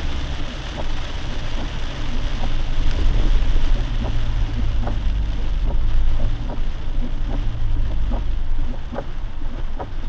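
Lifted Jeep driving through standing floodwater in the rain, heard from inside the cab: a steady low engine and tyre rumble under a hiss of water spray, with scattered sharp taps of rain and water hitting the body. The water noise swells about three seconds in and again about six seconds in.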